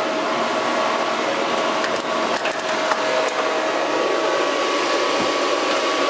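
Computer cooling fans running loud, a steady rushing whir with a constant whine over it, with a few light clicks in the middle.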